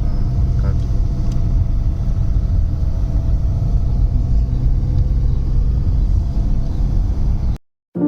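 Steady low rumble of a moving car, road and engine noise, which cuts off abruptly near the end.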